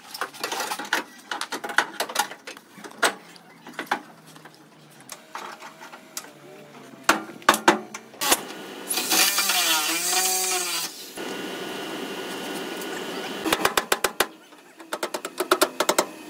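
Hammer blows on a car's sheet-metal body panels, some single and some in quick runs. A louder steady noise with wavering tones lasts about two seconds midway.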